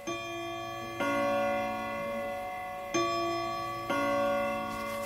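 Bell-like chime notes ringing, a new note or chord struck every one to two seconds and each left ringing on.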